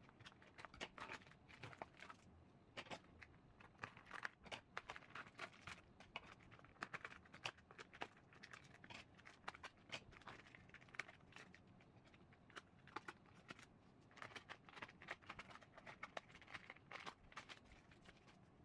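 Faint crinkling and tearing of instant ramen packaging, plastic wrappers and seasoning sachets being opened by hand and with scissors, with many small scattered clicks.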